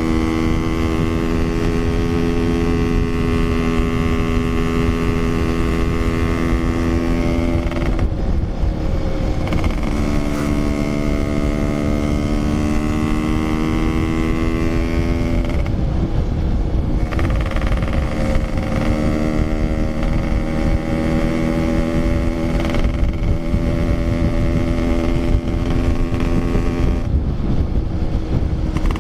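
Yamaha RX-King 135 cc single-cylinder two-stroke motorcycle engine running on the road, its note dropping and climbing again a few times with the throttle, over a low rumble of wind noise.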